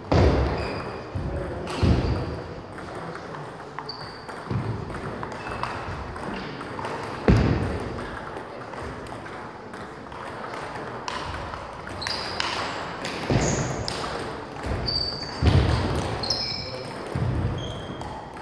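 Table tennis balls clicking off bats and tables in a large gym hall: scattered quick ticks, some with a short high ping, with a few louder dull thuds among them.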